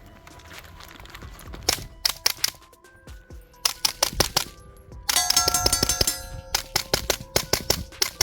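Rapid suppressed gunfire from a KP9 fitted with an Obsidian 45 suppressor, shots in quick strings with a dense burst about halfway through. Steel targets ring as they are hit.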